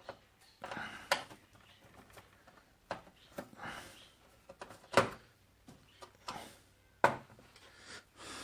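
Handling and tool noise while undoing the screws that hold an opened LED TV's panel: scattered clicks, scrapes and rubbing, with sharp knocks about one, five and seven seconds in.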